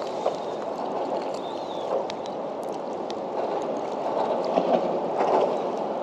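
Water lapping and gurgling against a kayak hull in a steady wash, with a few faint, scattered clicks.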